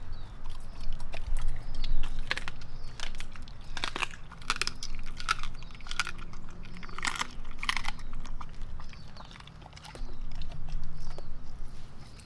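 Large dog eating raw meat: wet chewing with an irregular run of sharp mouth clicks and smacks, dropping off briefly about nine seconds in and starting again.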